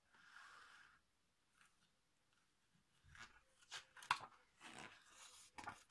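Paper page of a picture book handled and turned, with crisp crackles and rustles in the second half. A soft hiss comes at the start.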